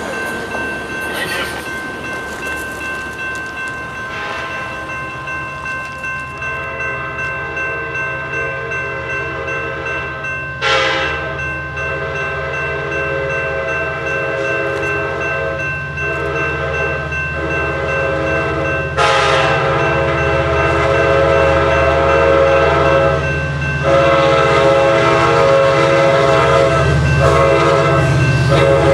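An approaching Sounder commuter train sounds its horn in a series of blasts for the grade crossing, the last two long. Underneath are the crossing bell ringing steadily and a low train rumble that grows as it nears.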